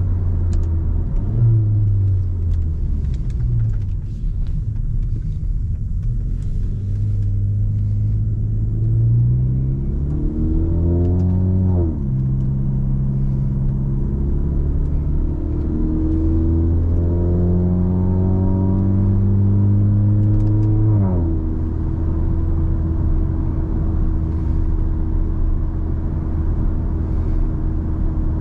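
Car engine and road noise while driving. The engine pulls up through the gears: its pitch climbs and drops sharply at each of two upshifts, about twelve and twenty-one seconds in, then holds steady at a cruise.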